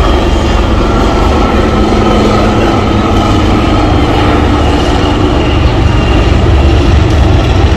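HAL Dhruv twin-turboshaft helicopter flying a display pass: a loud, steady deep rumble of rotor and engines, growing a little louder near the end.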